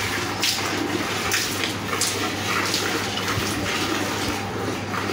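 A cow being milked by hand: squirts of milk hiss into a metal bucket partly full of milk, about two squirts a second.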